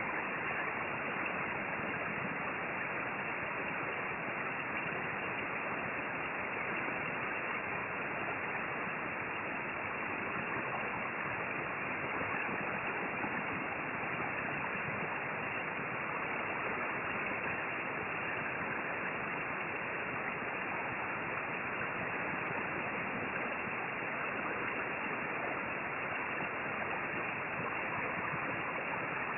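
Hot-air rework station blowing with its airflow set a little high: a steady, even hiss.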